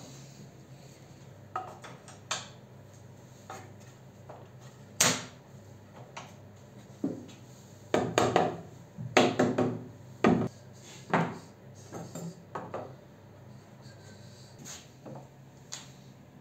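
Knocks and clatters of metal bar clamps and hand tools being handled against a pine board frame: a string of separate sharp taps, busiest about eight to ten seconds in.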